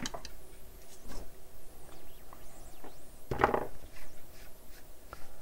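Light handling sounds on a workbench mat as teardown debris is cleared away: a few small taps, then a short, louder scrape about three and a half seconds in.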